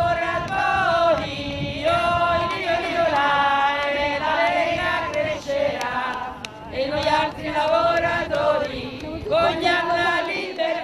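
A group of women singing a chant-like song together, holding notes and stepping from pitch to pitch.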